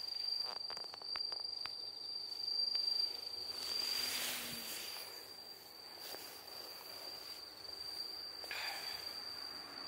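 An insect's steady high-pitched song, one unbroken tone, with a few soft clicks near the start and rustling about four seconds in and again near the end.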